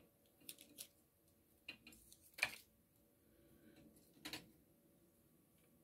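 A few faint, short clicks and knocks of small gel polish bottles being picked up and set down, the loudest about two and a half seconds in and another a couple of seconds later.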